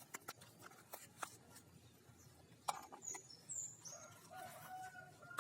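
Faint bird calls: a couple of short high chirps around the middle, then a drawn-out call toward the end, with scattered light clicks.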